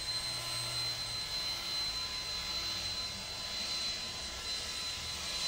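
Cordless battery leaf blower running steadily, a high electric whine over the rush of air from its nozzle.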